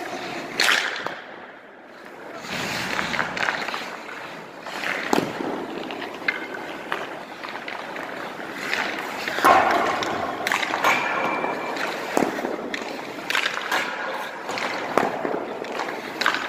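Echoing indoor ice-rink sounds: skate blades scraping the ice and sharp knocks of pucks and sticks, several times, with distant voices.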